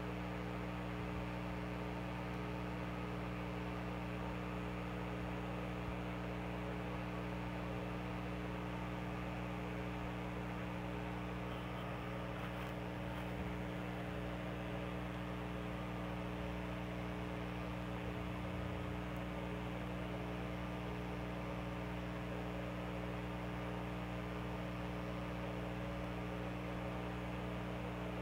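A steady hum of several low, unchanging tones with a faint hiss above it.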